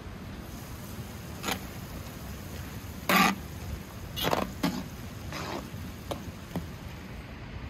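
A metal ladle scraping and knocking against a large metal pot while minced meat cooking in its juices is stirred: a handful of short scrapes, the loudest about three seconds in, over a steady background hiss.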